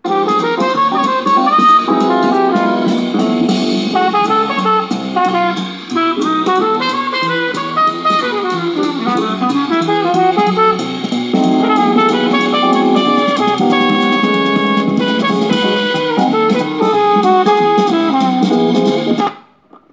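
A vinyl LP playing on a retro wooden record-player console, heard through its built-in speaker. The music starts at once as the stylus settles in the groove and stops abruptly shortly before the end.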